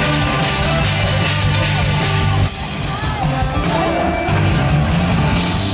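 Live rock band, with electric guitar, bass and drum kit, playing the instrumental close of a ballad, with a run of drum hits in the second half.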